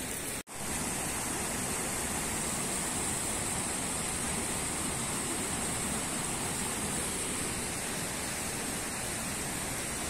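Steady rush of mountain river water flowing through rocky pools, with a brief break about half a second in.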